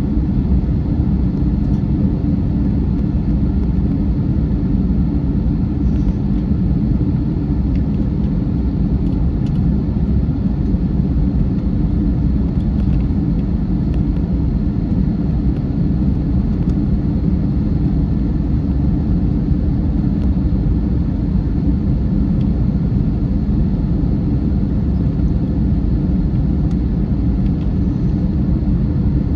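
Steady low rumble of jet engine and airflow noise inside the passenger cabin of an Airbus A321, with no change in thrust.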